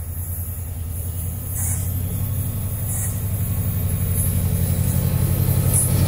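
Class 68 diesel-electric locomotive approaching at the head of a freight train, its Caterpillar V16 diesel engine running with a low, fast pulse that grows steadily louder as it nears.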